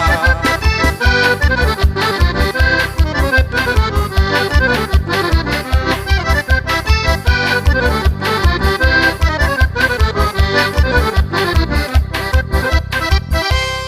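Accordion-led forró instrumental outro: the accordion plays a fast melody over a steady beat of drum and high percussion strokes, finishing on a final held chord at the very end.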